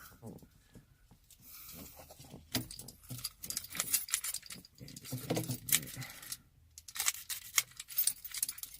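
A key ring jangling with quick metallic clicks and rattles, in two busy spells, as a key is worked in a freshly greased lock cylinder.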